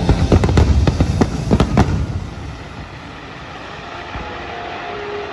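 Fireworks exploding in quick succession, a dense run of sharp bangs and crackles. About two seconds in they stop, leaving a quieter background.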